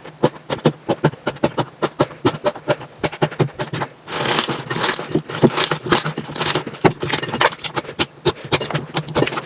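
Slime being squeezed and poked by hand, making quick wet pops and clicks. From about four seconds in they come thicker, with a crackling sound.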